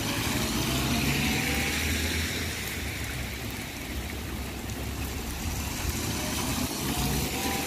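Two cars passing one after the other on a wet road, their tyres hissing through the water and their engine notes rising as they go by, one in the first seconds and one near the end.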